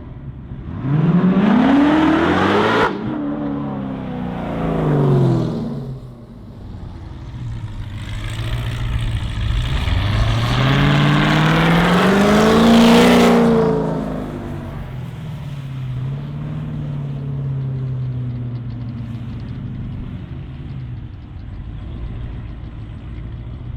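A car engine accelerating hard twice. The first rise in pitch cuts off sharply about three seconds in. The second climbs to a peak around thirteen seconds, then falls away and settles into a steadier, lower running sound.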